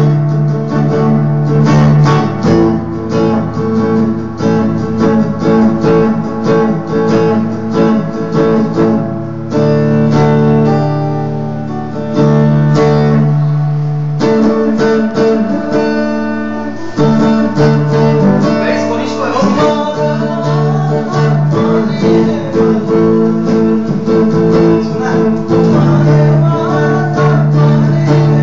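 Electric guitar strummed in a steady rhythm, chords ringing between the strokes, with a stretch about ten to seventeen seconds in where the strumming thins and chords are left to sustain.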